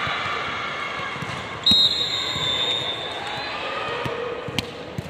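Voices chattering in a gym, with a short blast of a referee's whistle about two seconds in and a couple of sharp thuds of a volleyball being hit or bouncing near the end.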